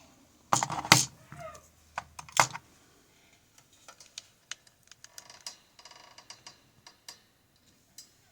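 Parts of a disassembled pin-tumbler lock being handled: a few sharp metal knocks and clatters in the first couple of seconds, then light scattered clicks.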